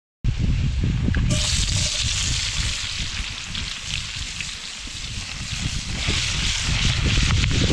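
Sizzling and frying from a cast iron skillet over a campfire, as a steady hiss over a low rumble, with a few sharp crackles near the end.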